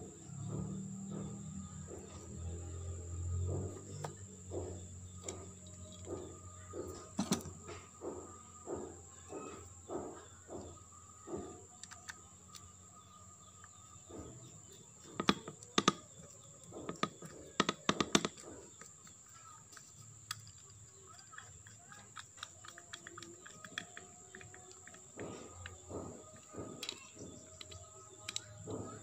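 Small metal clicks and clinks as a screwdriver is worked among the metal parts of a disassembled motorcycle starter motor. There is a quick cluster of sharper, louder clinks about halfway through. A steady high-pitched whine and a run of faint, evenly spaced chirps sound behind.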